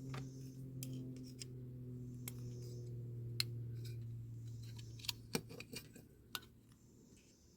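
Scattered sharp metal clicks and taps of small hand tools working on a die-cast metal toy car, several coming close together a little after five seconds in, over a steady low hum that fades out near the end.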